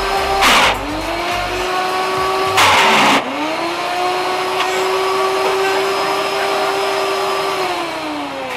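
High-powered countertop blender running on a thick purple acai mix while a tamper pushes it into the blades. The motor pitch drops twice with a loud churning burst as the load hits the blades, each time climbing back up. Near the end it winds down as the blender is switched off.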